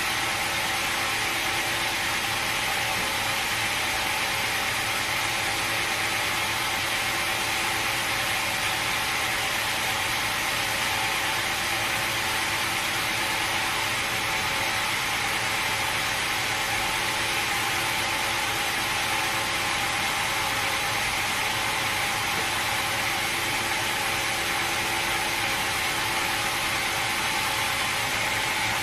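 Sawmill machinery running steadily: a constant mechanical drone with a few steady tones and a strong hiss, no change in load.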